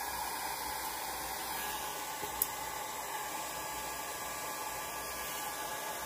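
Handheld blow dryer running steadily: a rush of air with a constant motor whine. A faint click about two and a half seconds in.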